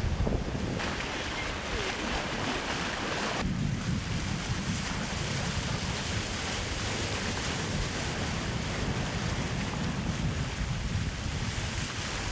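Sailboat running fast under sail: a steady rush of waves and water along the boat, with wind buffeting the microphone.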